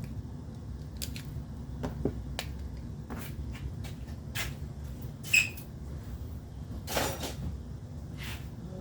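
Hand tools being moved and set down on a work surface: scattered clicks and knocks, the loudest about five seconds in with a brief metallic ring, over a steady low hum.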